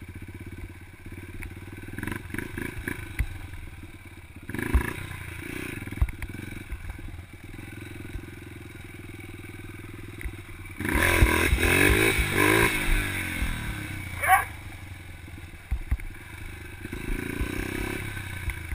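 Yamaha TT-R125 dirt bike's single-cylinder four-stroke engine running while riding on a dirt track. It revs up briefly a few seconds in, then revs harder and louder with rising pitch past the middle. A short sharp sound comes just after that.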